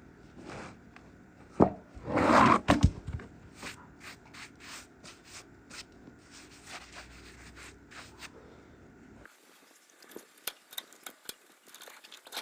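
Rubbing and scraping handling noises with scattered clicks, loudest in a short scrape about two seconds in; no saw is running.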